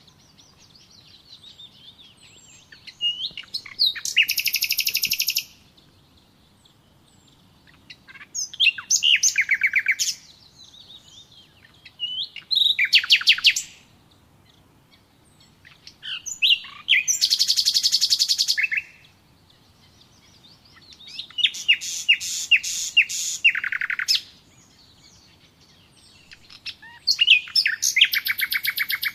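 A songbird singing: six bursts of fast trilled song, each one to three seconds long, coming every four seconds or so, with soft twittering between.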